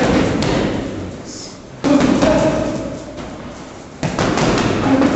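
Boxing gloves thudding on a heavy punching bag in quick series of punches, with music playing behind.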